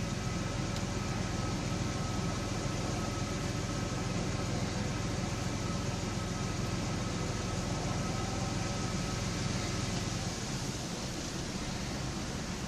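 Chevrolet Blazer's 4.3 L V6 idling with a misfire, which the owner puts down to low compression in cylinder 4. The low rumble eases slightly about ten seconds in.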